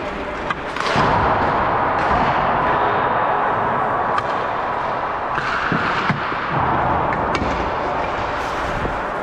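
Ice hockey rink ambience before a game: a steady din with several sharp knocks scattered through it, typical of pucks hitting the boards during warm-up.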